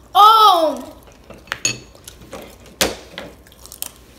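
A child's loud wordless cry, rising then falling in pitch, lasting under a second. Then several light clinks and taps of chopsticks and tableware against plates.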